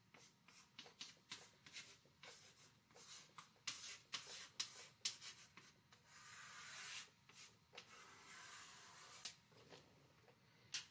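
Faint scratching of writing on a blackboard: a run of short strokes as an answer is written out, then two longer strokes about six and eight seconds in as it is boxed.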